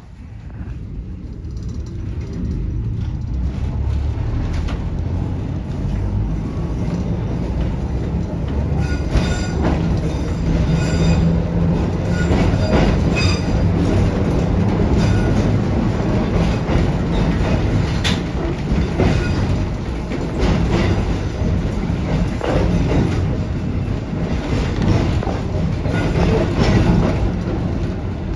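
Electric trolley car pulling away and running along the track, its noise building over the first two or three seconds and then holding steady, with wheels clicking over rail joints.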